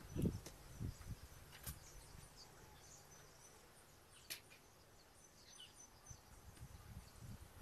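Faint outdoor ambience with small birds chirping now and then, a couple of soft thuds in the first second and a few sharp clicks.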